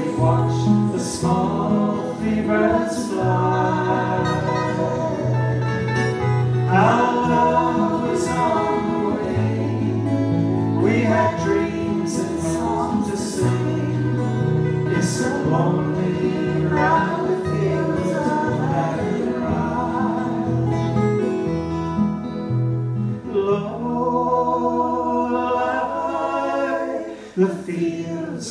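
Acoustic guitars strumming and picking a slow folk ballad, with a man and a woman singing in harmony.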